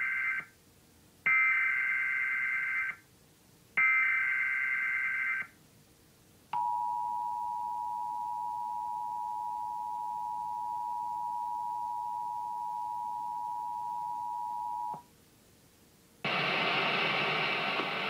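Emergency Alert System broadcast for a test tornado watch. It opens with the buzzy bursts of the digital SAME header, about a second and a half each: the tail of one, then two more. A single steady attention tone follows and holds about eight seconds. Near the end the spoken alert message begins.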